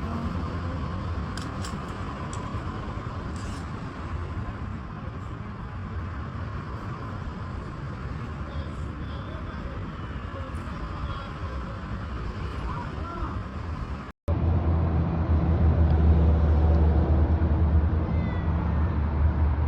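A steady low rumble of background noise, louder after a sudden break about two-thirds of the way through; near the end a cat meows a few times in short rising-and-falling calls.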